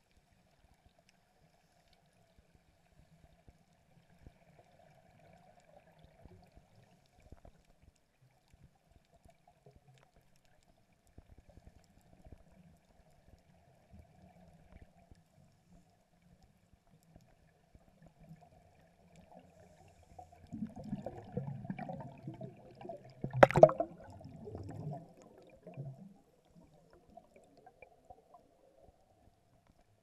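Muffled underwater sound: faint scattered clicks over a faint steady hum. About 20 seconds in come a few seconds of low rumbling bubbling, typical of scuba exhaust bubbles from a regulator, with one sharp knock in the middle of it.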